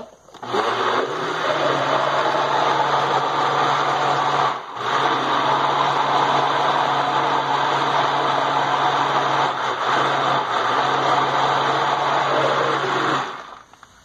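Countertop kitchen blender running, mixing pie batter. It starts about half a second in, cuts out briefly about four and a half seconds in, runs again, and stops shortly before the end.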